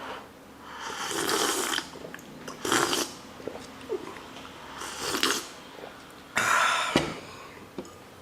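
Person slurping sips of hot coffee from a cup: four short noisy slurps a second or two apart, the last the loudest.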